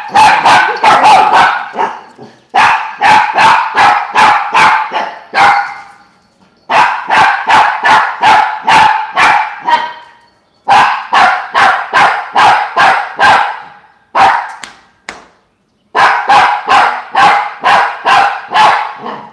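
Toy poodle barking angrily: rapid, high-pitched yapping, about four barks a second in runs of several barks with short pauses between.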